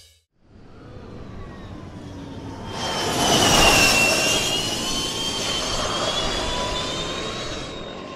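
Whooshing sound effect with a high whine, swelling in after a moment of silence to a peak about three and a half seconds in, where the whine dips slightly in pitch, then holding and fading out near the end.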